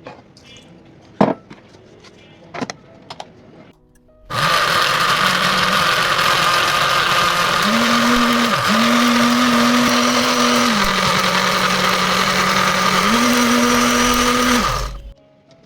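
Electric blender blending guava for juice, running for about ten seconds with its motor hum stepping up and down in pitch a few times, then stopping. A few knocks and clicks come before it starts.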